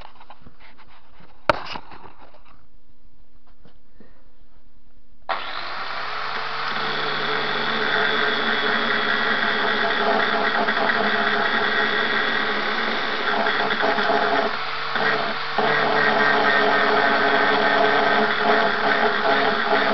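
An angle grinder is switched on about five seconds in and spins up. Its disc then grinds into steel, cutting a rounded recess into the face of a steel jaw, with a short dip about two-thirds of the way through. Before it starts there is only faint handling and a single sharp click.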